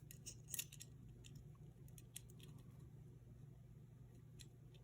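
Faint, scattered light clicks and taps of small steel pistol parts being handled as the thumb safety is worked back into a Sig P220 frame, over a low steady hum.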